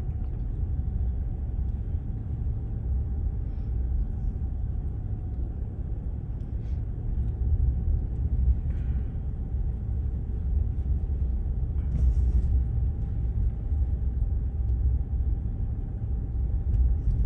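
Steady low rumble of a Jeep driving along packed beach sand, heard from inside the cabin.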